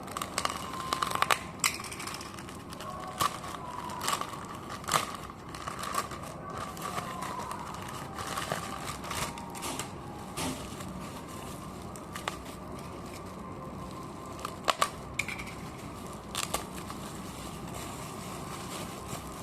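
A parcel's packaging being opened by hand: irregular crinkling, rustling and tearing of the wrapping, with sharp clicks and snaps, a few of them loud, about a second in, around five seconds in and near three-quarters of the way through.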